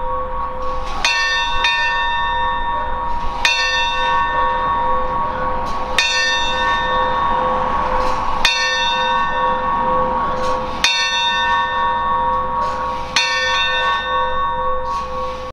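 A single bronze church bell tolling, struck about every two to two and a half seconds. Each stroke rings on into the next, over a steady lingering hum.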